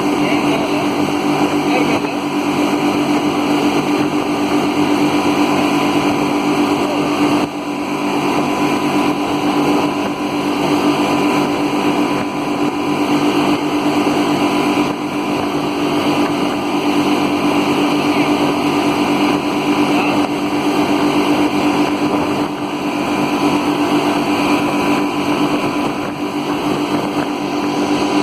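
A speedboat's engine running steadily at speed: a constant, even drone over a steady rush of noise.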